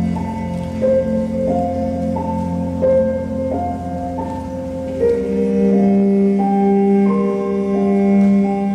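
Instrumental music: a slow melody of held notes stepping up and down over a low drone, with a louder, deeper held note coming in about five seconds in.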